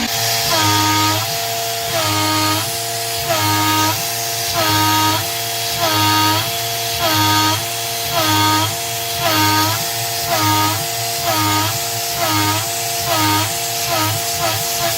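CNC-converted PM-25 milling machine cutting with a 3/8-inch three-flute carbide end mill at half-inch depth and 120 inches per minute. A whine rises and falls in pitch with each back-and-forth pass of the table, over the steady cutting noise. The passes repeat about once a second and come closer together near the end.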